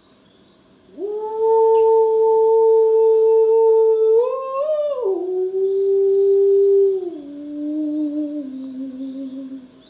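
A woman's voice singing a slow tune in long held notes, starting about a second in. The notes waver upward briefly about four seconds in, then step down to lower notes near the end.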